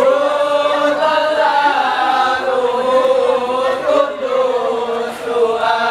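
Group of male voices chanting in unison, the sung part of an Acehnese Rapa'i Geleng seated dance, on long held notes that slide from pitch to pitch.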